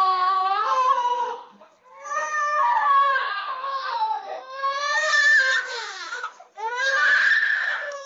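AI-generated audio from the AudioGen model for the prompt "woman yelling, baby crying": a baby crying in four long wails with short breaks between, together with a woman yelling.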